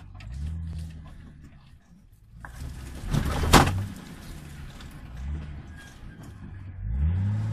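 Nissan Patrol off-roader's engine revving briefly in low gear, once about a second in and again near the end. A loud, sudden scraping crash comes about three and a half seconds in.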